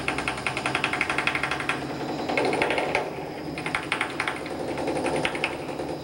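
Pneumatic chipping hammer rattling rapidly against a concrete mixer truck's drum, chipping off dried concrete, in bursts with short pauses; a truck engine idles underneath.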